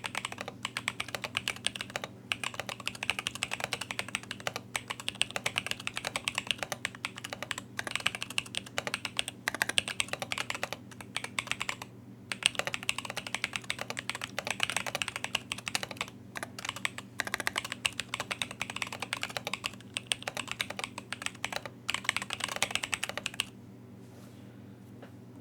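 Fast typing on a custom mechanical keyboard with Moyu switches lubed with Krytox 205g0, a carbon fibre plate and KAT keycaps: rapid keystrokes in runs broken by short pauses, stopping near the end.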